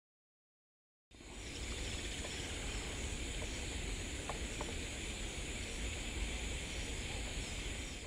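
Outdoor field ambience: a steady, high-pitched insect drone over a low rumble, with two faint short notes near the middle. It starts abruptly about a second in and stops at the end.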